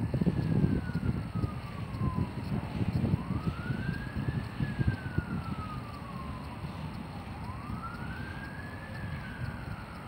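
Siren wailing, its pitch sweeping up quickly and then falling slowly, a cycle about every four seconds. Gusty wind buffets the microphone underneath, hardest in the first second.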